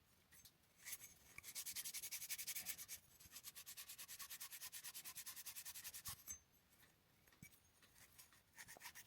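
Faint, fast back-and-forth rubbing, several strokes a second, as a freshly soldered copper pipe joint is cleaned up. It runs in two stretches, with a short pause about three seconds in, and stops about six seconds in.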